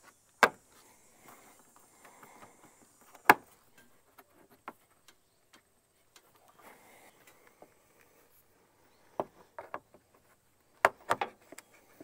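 Hand tools and parts being handled during engine reassembly: sharp knocks about half a second and three seconds in, then a cluster of quicker clicks and knocks near the end.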